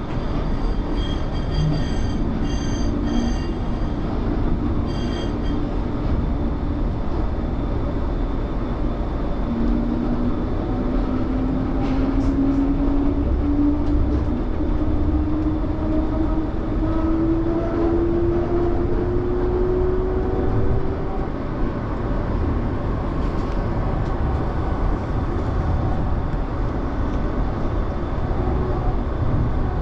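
Low-floor light rail tram running, heard from the cab: a steady rumble of wheels and running gear. A few short high beeps sound in the first five seconds. From about ten to twenty seconds in, a motor whine rises steadily in pitch as the tram picks up speed.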